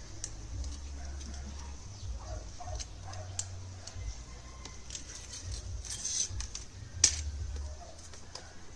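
Light scraping and small clicks from a pen marking a thin strip of drink-can aluminium, with a brief scratchy rustle about six seconds in and a sharp click about seven seconds in, over a low rumble. Pigeons coo faintly in the background.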